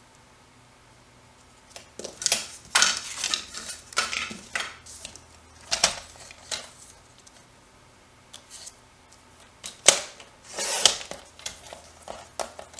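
Card stock and paper-crafting tools being handled while a mat is measured and trimmed: a run of sharp clicks, taps and scrapes, in two clusters, about two seconds in and again about ten seconds in.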